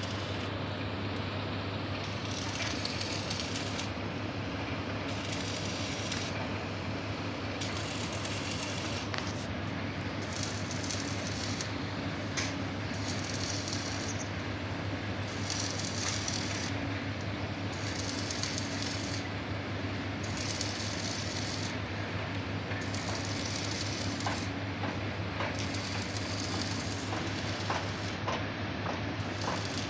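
Heavy machinery running steadily, with a constant low hum under broad mechanical noise and a few light knocks near the end.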